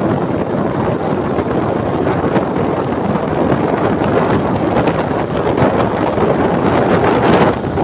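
Wind buffeting the phone's microphone on a moving motorcycle: a loud, steady rush of wind and road noise, easing briefly near the end.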